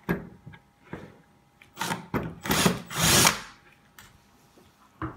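Drill-driver spinning a screwdriver bit in three short bursts, after a few small clicks, trying to drive screws that are very tight and hard to turn.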